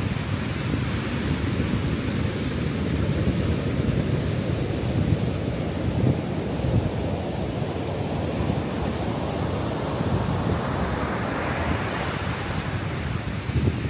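Ocean surf breaking and washing up a sandy beach, with wind rumbling on the microphone. The hiss of the wash swells for a few seconds near the end.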